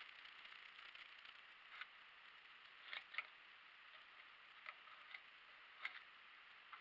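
Near silence with a faint hiss and scattered light clicks and taps, about seven in all, from small hand tools and parts being handled while a part is marked out. The loudest are a pair about three seconds in.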